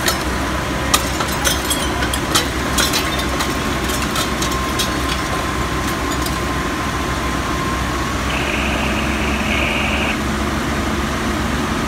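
Fire apparatus engine running steadily at the fireground, with a few sharp clicks and cracks in the first three seconds and a brief high-pitched tone about eight seconds in.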